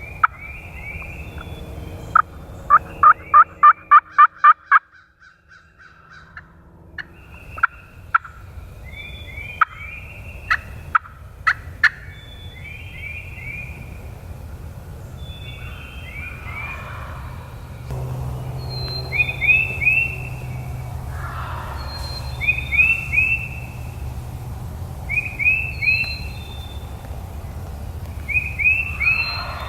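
Wild turkey jakes gobbling several times, with a fast run of about eight loud yelp-like notes a few seconds in.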